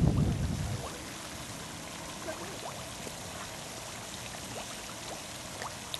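Steady splashing of a pond's spray fountain, a low even rush of water, with faint chirps over it. A brief low rumble of wind on the microphone fades out in the first second.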